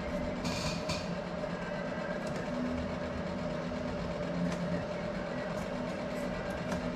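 Steady machine hum with a constant mid-pitched tone, and a short hiss about half a second in.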